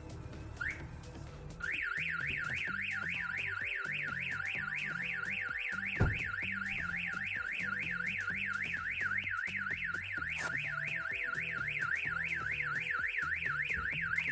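StarLine E96 car alarm going off because the ignition was switched on without its Bluetooth tag present: one last rising countdown chirp, then about one and a half seconds in it triggers into a continuous warbling siren of rising sweeps, about four or five a second. A single thump about six seconds in.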